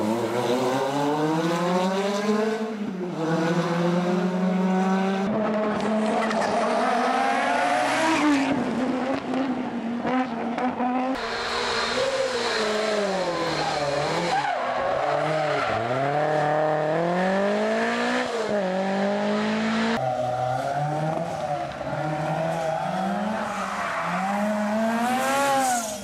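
Rally car engines revving hard, their pitch climbing and dropping back again and again through gear changes as the cars accelerate past, with tyre squeal from cars sliding. Several separate passes follow one another, the sound switching abruptly between them.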